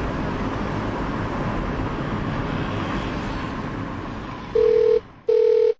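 Steady road noise inside a moving car, giving way about four and a half seconds in to two short bursts of a telephone ringing tone, a double ring heard as a call is being placed.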